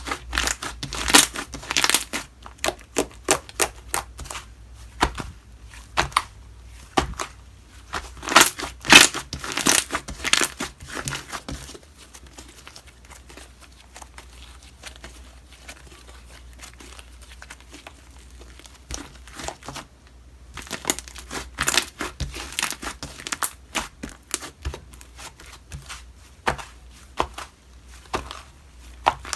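Slime being squeezed, poked and stretched by hand, giving runs of sharp clicks, pops and crackles, busiest near the start and again in the second half.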